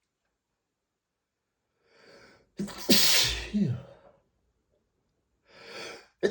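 A man sneezing from a dust allergy: a short in-breath about two seconds in, then one loud sneeze that trails off in a falling voiced sound. A second in-breath near the end leads straight into the start of another sneeze.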